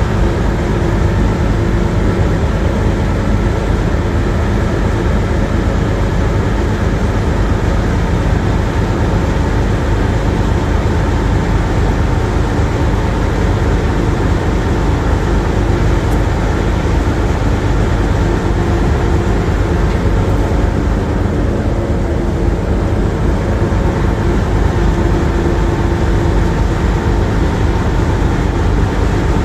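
Steady loud rumble of a river motor ship's engine, a dense low drone with a few steady hum tones running through it.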